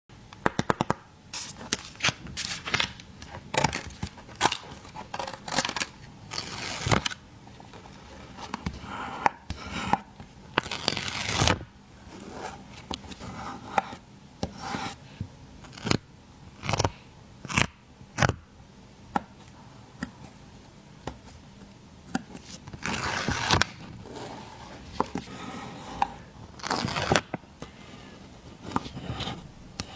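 Close-up sticker ASMR: stickers are peeled off their backing sheets and pressed down, giving repeated short peeling, scraping and rustling sounds mixed with sharp taps and clicks.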